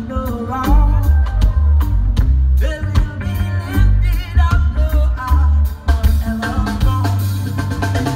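Live reggae band playing, with a heavy bass line and drum kit to the fore and a voice singing over it.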